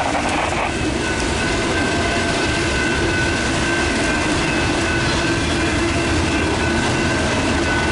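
Double-stack intermodal freight cars rolling steadily past, a continuous rumble and clatter of steel wheels on rail, with the crossing's electronic bells ringing as steady high tones over it.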